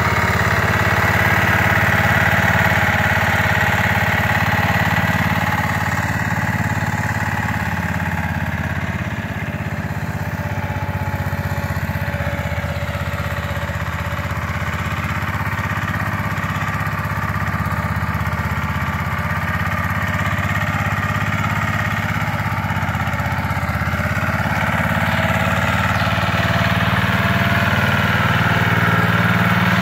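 Small Tuff Built garden tractor's engine running steadily as it is driven around. It gets a little quieter about a third of the way in and louder again near the end.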